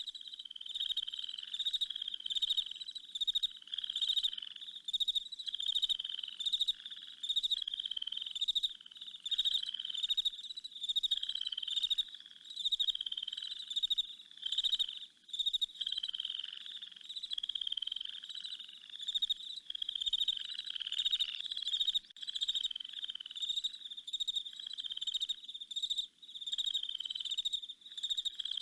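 A chorus of frogs calling, with high-pitched trilled calls that slide slightly downward and repeat about once a second, many voices overlapping.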